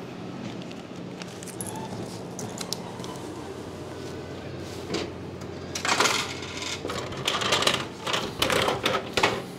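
Vending machine delivery bin: over a steady low hum, a run of sharp clicks and clatters from about halfway through as the hinged flap is pushed open and a boxed item is pulled out.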